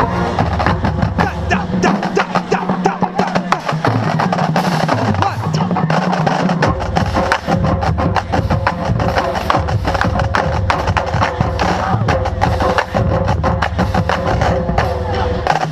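School marching band playing: brass holding and changing low chords over steady drumline percussion.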